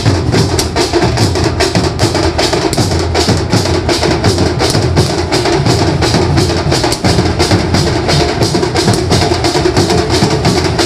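Banjo band playing a fast, dense percussion rhythm: many sharp, evenly spaced strokes over steady drumming.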